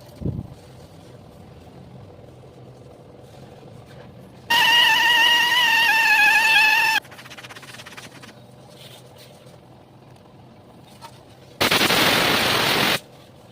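Two bursts from compressed-air equipment used in tube puncture repair. First comes a loud, wavering high-pitched whine for about two and a half seconds. Near the end comes a loud hiss of blowing air for about a second and a half.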